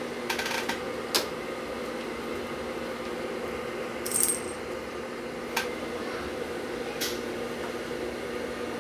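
A few sharp light clicks and knocks, with a brief high metallic jingle about four seconds in, over a steady low hum.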